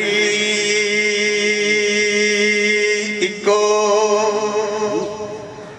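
A man singing long held notes of a devotional recitation through a microphone and PA. One note is held for about three and a half seconds, there is a short break, and a second note is held and then fades near the end.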